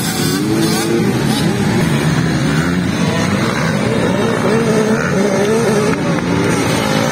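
Several small youth motocross bikes racing, their engines revving up and down continuously with overlapping, wavering pitches.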